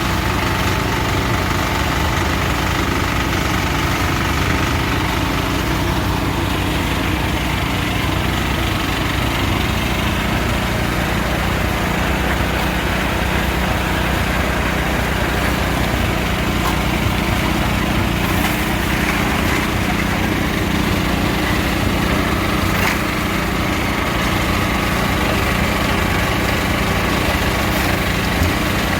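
Small engine running steadily at a constant speed, with a few faint clicks over it.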